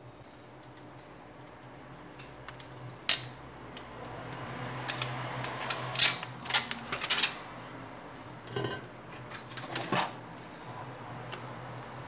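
Small hand tools and a phone's removed back cover being set down on a silicone repair mat: a run of sharp clicks and light clatters, thickest about five to seven seconds in, with two more knocks near the end. A low steady hum sits underneath.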